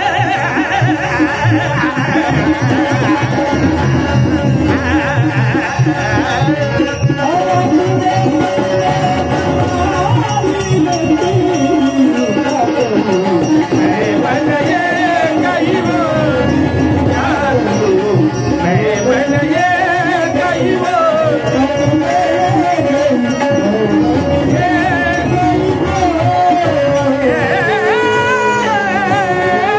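Indian devotional folk music (a gavlan) playing steadily: a melody that glides up and down in pitch over a continuous drum rhythm.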